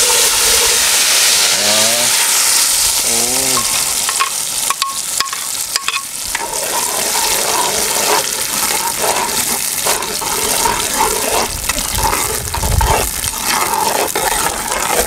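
Blended chile sauce for mole sizzling as it fries in hot oil in a clay cazuela, stirred with a metal spoon. The sizzle is hardest in the first few seconds, a sign of hot oil, then settles into a steadier crackle with a few clicks of the spoon.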